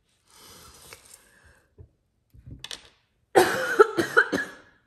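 A woman coughing several times in a quick bout, starting about three and a half seconds in: a cough from her illness.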